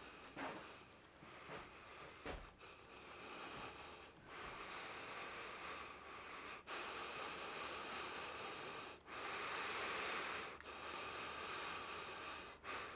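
A few short sniffs, then a man's heavy breaths close to the microphone: long noisy breaths of a second or two each, with brief breaks between them.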